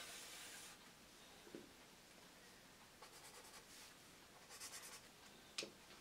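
Faint scratching of pens on paper: a marker stroke at the start, then a few short, quick back-and-forth strokes as small bands are coloured in with a blue pen, and a single sharp tap near the end.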